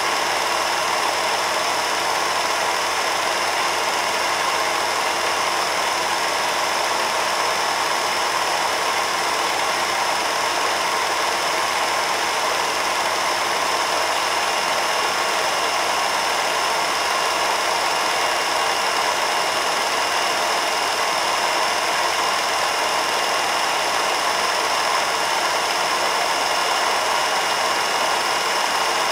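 Film projector running steadily: an even mechanical whir with a faint high whine, unchanging throughout.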